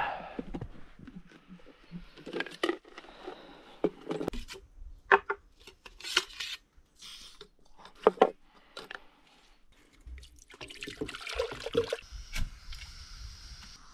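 Camp cookware being handled: scattered clinks, knocks and rubbing as a small gas-canister stove and a cooking pot are set up on a wooden board, with a longer stretch of scraping about ten seconds in.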